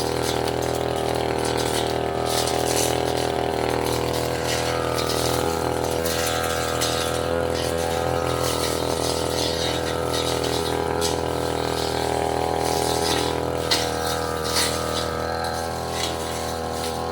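Tasco 33 Pro brush cutter engine running steadily at working speed, with scattered sharp ticks as the cutting head strikes saplings and small roots.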